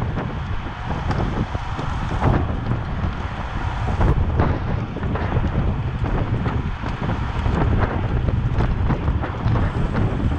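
Wind buffeting the microphone: a loud, gusting rumble with scattered brief crackles.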